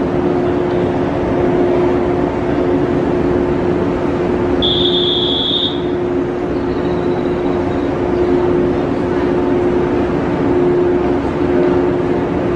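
A yellow JR West local electric train stands at a station platform with its on-board machinery humming steadily, over general station noise. A short, high electronic beep sounds about five seconds in.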